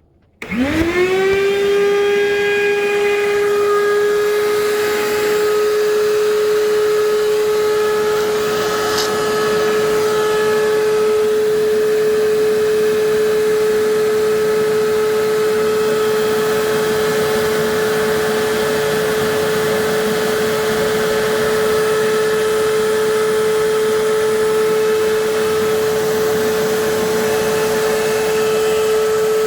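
Shop vac switched on about half a second in: its motor spins up with a quickly rising whine, then runs steadily with a high, even hum. It is drawing warm engine oil out through a sealed jar and thin vinyl tubing.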